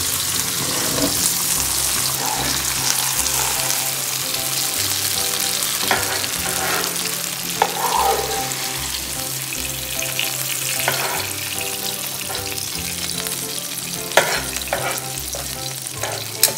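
Butter and olive oil sizzling in a hot frying pan, a steady hiss. A few sharp metal clinks come from a meat fork knocking against the pan and baking tray as the meat is lifted out.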